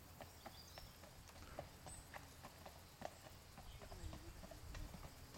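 Faint, irregular clip-clop of a horse's hooves walking on a dirt track, heard over a low outdoor rumble.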